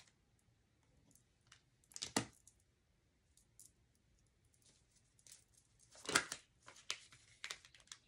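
Tarot cards being handled and laid on a table: faint papery slides and small taps of card stock, with a louder swish about two seconds in and again about six seconds in, then a few light ticks.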